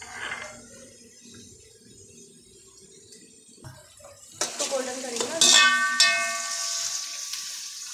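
Sliced onions sizzling in oil in a large aluminium pot while a steel spatula stirs them. About halfway in, the spatula starts scraping and knocking against the pot, which rings after the hardest strikes, and the sizzle goes on steadily after that. The onions are raw and have just gone in, at the start of frying them golden for a korma base.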